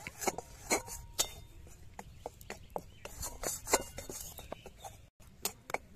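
Steel spatula scraping and tapping against a metal wok while gram flour is stirred and dry-roasted. The sound is a run of short, irregular clicks and scrapes.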